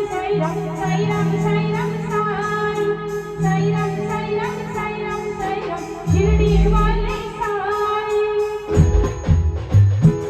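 Live band music: a woman singing a Hindi film-style song over held bass notes and a steady drone. About three-quarters of the way through the singing stops and the drums and tambourine take over with a run of quick beats.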